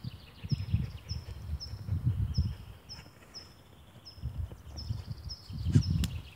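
A young Mongolian Banhar dog digging in dry sandy soil, its front paws scraping in irregular bursts that are loudest near the end. A short high chirp repeats steadily about twice a second in the background.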